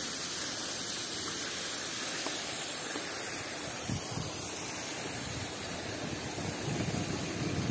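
Steady rushing hiss of wind and rolling tyres on the microphone of a camera carried on a mountain bike riding down a trail, with a couple of faint knocks about four seconds in and gusty wind buffeting building near the end.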